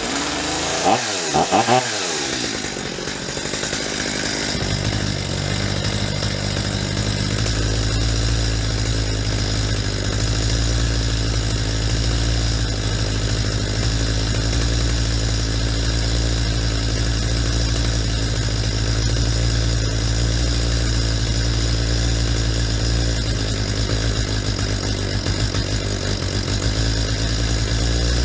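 Stihl MS250 two-stroke chainsaw pulled over and starting in the first couple of seconds, then running steadily at idle while its low-speed mixture screw is adjusted to find the peak idle speed; the engine note shifts a few seconds in and then holds steady.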